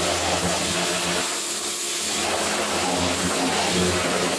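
Pressure washer running, its water jet blasting caked grass off the underside of a metal lawnmower deck: a motor hum under the hiss of the spray.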